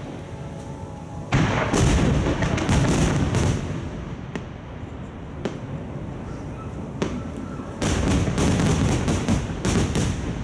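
Aerial fireworks bursting overhead in two rapid-fire volleys of many overlapping booms. One starts suddenly about a second in and the other near the end, with a few single bangs between them.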